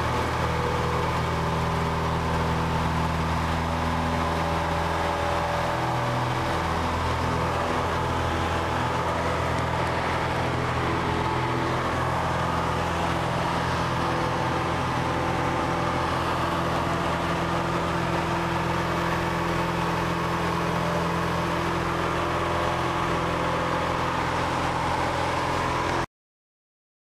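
Cessna 172's single piston engine and propeller running at a steady drone, heard from inside the cockpit through taxi, takeoff and climb. The engine note shifts about six seconds in, and the sound cuts off abruptly near the end.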